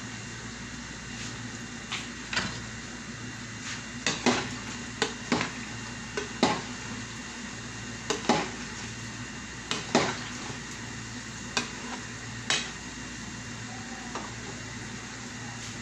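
A metal cooking utensil knocking and scraping against a pan on the stove, about a dozen irregular clinks, over a steady low hum and hiss.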